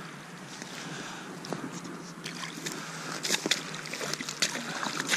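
Pike thrashing in shallow water at the bank: a run of irregular sharp splashes and slaps starting about two seconds in, over a steady hiss.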